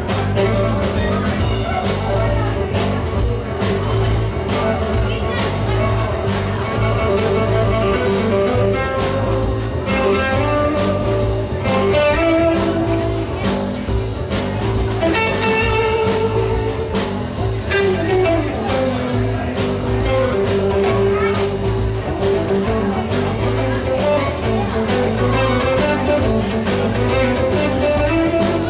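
Live rock band playing: electric guitar lines over electric bass and a drum kit keeping a steady beat.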